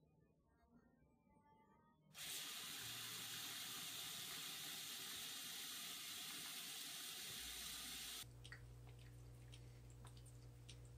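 Bathroom sink faucet running, water pouring steadily into the basin; it comes on suddenly about two seconds in and stops abruptly about six seconds later. Faint scattered clicks over a low hum follow near the end.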